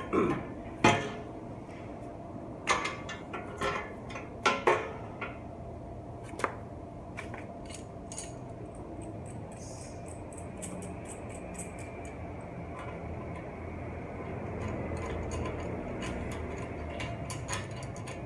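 Metal clanks and knocks as a bare steel bicycle frame and hand tools are handled on a concrete floor, the loudest knocks in the first five seconds, then lighter clicking and ticking of work on the frame's bottom bracket area.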